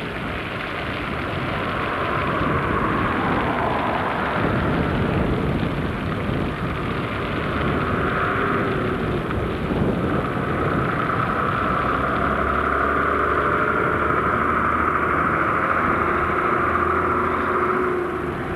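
Bedford VAL14 coach's diesel engine running as the coach approaches and drives past, growing louder over the first twelve seconds and holding loudest with a steady low hum before falling away sharply near the end as it passes.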